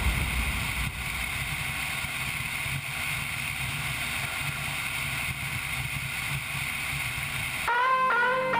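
KTM 990 Adventure S motorcycle's V-twin engine running steadily at road speed, mixed with wind rushing over the bike-mounted camera. Guitar music comes in near the end.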